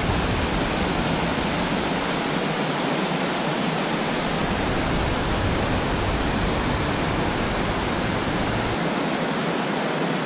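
Water pouring over a river dam's spillway and gates: a steady, unbroken rush of noise with no breaks or separate events.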